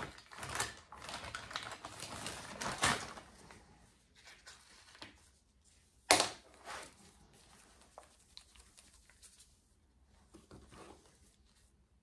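Handling noises at a crafting bench: clicks, taps and rustling as supplies and a paintbrush are picked up and put down, busy for the first few seconds and sparser after. One sharp knock about six seconds in is the loudest sound.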